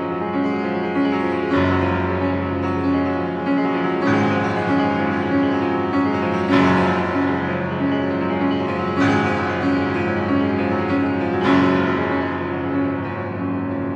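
Instrumental background music: a steady repeating pattern of notes, with a fresh chord struck about every two and a half seconds.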